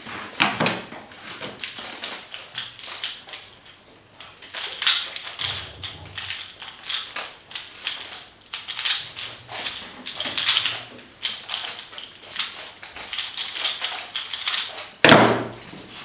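A 3x3 speedcube clacking rapidly as its layers are turned through a timed solve. About 15 seconds in comes a loud slap as both hands come down on the timer pads to stop the timer.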